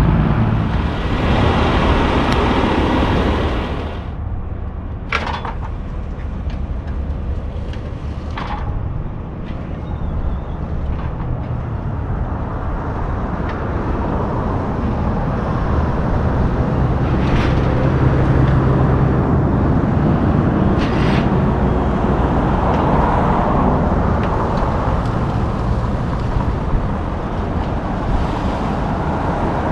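Road traffic passing for the first few seconds, then the steady low run of a car-hauler truck's diesel engine, kept running to power the trailer's hydraulic decks as a pickup is lowered, with a few sharp clicks.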